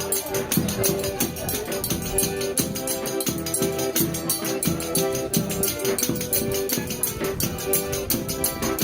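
Forró pé de serra band playing instrumental music: held melody notes over low drum beats and a fast, even high percussion rhythm like a triangle or shaker.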